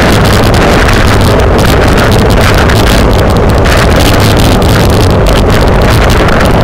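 Loud, steady wind noise buffeting the microphone of a camera riding on a bicycle moving at race speed.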